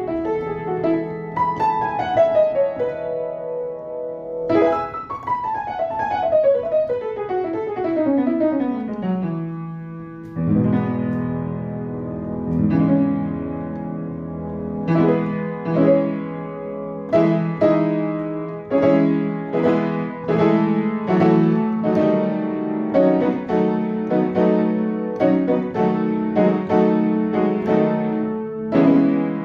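Piano music: fast runs falling in pitch over the first ten seconds or so, then a steady pulse of struck chords.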